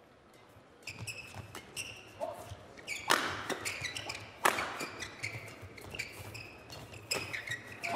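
Badminton rackets striking a shuttlecock in a fast doubles exchange, with short squeaks of players' shoes on the court mat between the hits. The two hardest hits come about three and four and a half seconds in.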